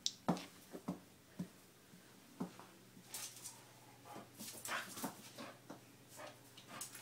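A dog playing with a stuffed toy on a tile floor: a few short sharp knocks in the first second and a half, then short scuffling noises.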